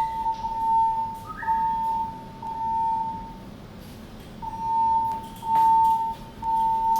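Fire alarm evacuation tone from the building's alarm speakers: a steady beep at about 1 kHz sounding in repeated pulses, with a pause of about a second midway, between announcements of the voice-evacuation message during an alarm test.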